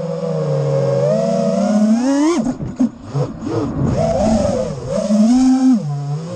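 FPV quadcopter's brushless motors whining with throttle. The pitch rises steadily for the first couple of seconds, then breaks up and swings sharply down and up through a flip as the throttle is chopped and punched again, before settling back to a steadier whine.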